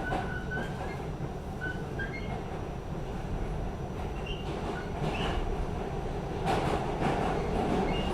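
R46 subway train running, a steady rumble and rattle of wheels on rail with scattered short high squeaks, growing louder about six and a half seconds in.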